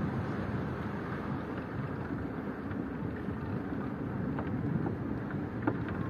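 Steady rush of surf breaking on the beach, mixed with wind on the microphone, with a faint click or two in the second half.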